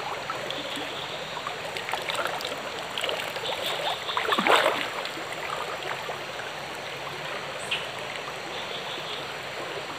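Small forest stream trickling, with scattered splashes and drips of water as a gill net is hauled up out of it. The loudest splash comes about four and a half seconds in.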